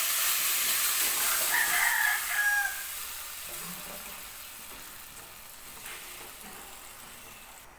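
Hot tempering oil in an aluminium kadai sizzling loudly as a watery ground toor dal and coconut paste is poured in, the sizzle dying down steadily from about three seconds in as the pan fills. A rooster crows once in the background, about a second and a half in.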